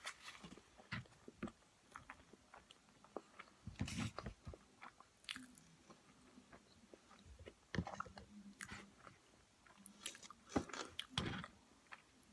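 Close-up eating sounds of a burrito: scattered wet chewing smacks and clicks, with a few louder bites and crunches around four, eight and eleven seconds in.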